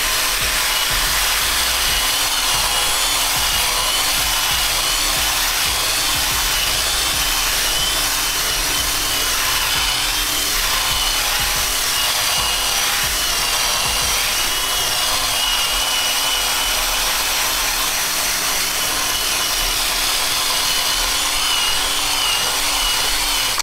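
Cordless drill spinning a scrub-brush pad against wet boat carpet lathered with shaving cream: a steady motor whine over a continuous scrubbing rasp, which cuts off abruptly at the end.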